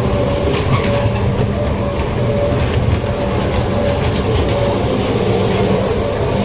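Modern Products ghost-train car rolling along its track: a steady rumble with a wavering hum and irregular wheel clicks.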